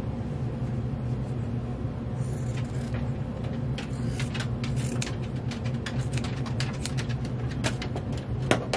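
Scissors snipping through the stitched edge of a fabric stuffie, trimming the seam allowance: a quick series of short cuts, about three a second, starting about two and a half seconds in, over a steady low hum.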